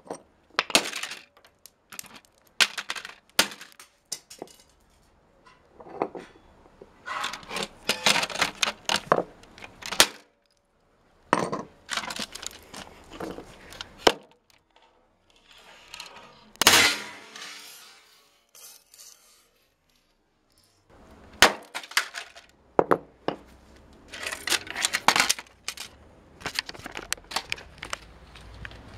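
Plastic computer keyboard being broken apart on concrete paving: repeated sharp cracks and plastic clatter, coming in bursts with short pauses between.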